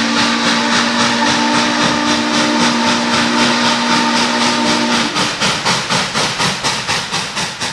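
Norfolk & Western Class J No. 611, a 4-8-4 steam locomotive, running with its exhaust chuffing about three to four times a second under a long chime-whistle blast. The whistle stops about five seconds in, and the chuffing then fades away.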